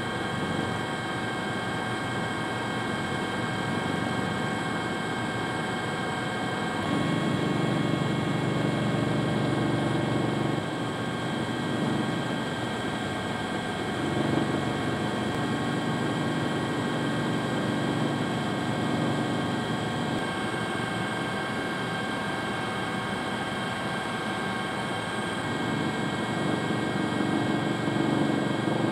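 Helicopter engine and rotor noise, running steadily with a constant high turbine whine. The low rumble grows louder and falls back several times.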